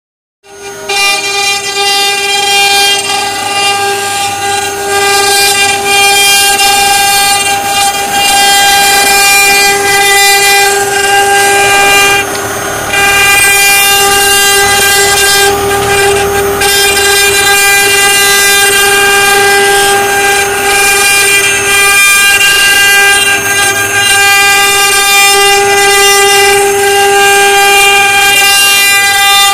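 The eight spindle motors of a multi-head 3D CNC router carving wood, running together with a steady high whine over the rasp of the bits cutting. The sound drops briefly about twelve seconds in.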